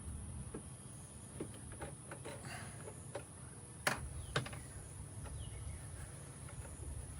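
Scattered light clicks and taps from work on a car's dashboard and interior trim, with two sharp knocks about half a second apart near the middle, over a steady low hum.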